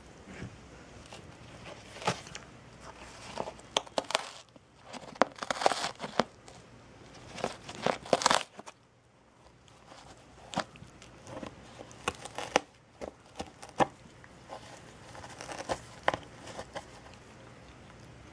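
A cat biting and tearing at the edge of a cardboard box, making irregular crunching and ripping bursts with a short pause near the middle.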